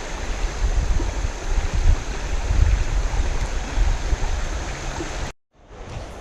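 River water rushing steadily, with wind buffeting the microphone in uneven low rumbles. About five seconds in the sound cuts out abruptly, then returns quieter.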